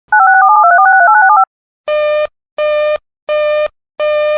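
A quick run of touch-tone (DTMF) digits on the alert broadcast feed for about a second and a half, followed by a buzzy beeping tone pulsing on and off, four beeps at a steady pace.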